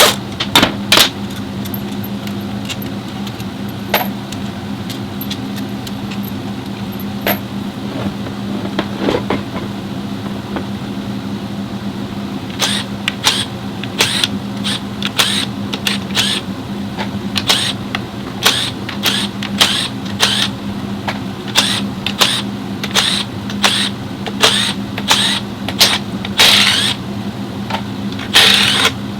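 Nissan Cube running with a steady low drone from its drivetrain, the transmission noise heard while driving. Sharp clicks or rattles come in now and then at first, then more than once a second from about halfway through.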